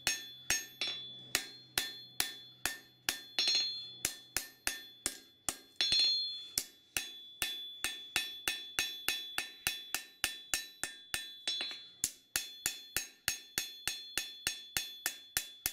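Hand hammer striking a red-hot steel knife tang on an anvil, in steady blows about three a second, each with a bright metallic ring: forging the tang to shape.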